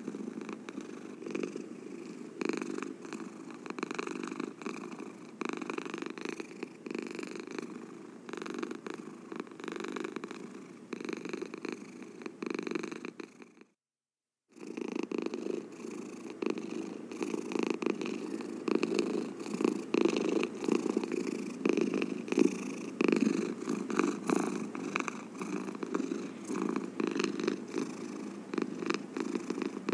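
A cat purring close up, a steady low rumble of rapid pulses. It cuts out for about a second near the middle, then comes back a little louder.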